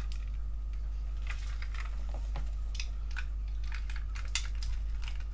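Hard plastic toy parts clicking and knocking in the hands as an action figure is worked into the seat of a plastic Power Rangers Turbo toy car: a scatter of light, irregular clicks over a steady low hum.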